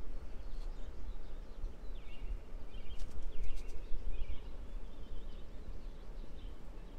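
Small birds chirping outside, with a cluster of quick twittering calls from about two seconds in and fainter ones later, over a steady low rumble.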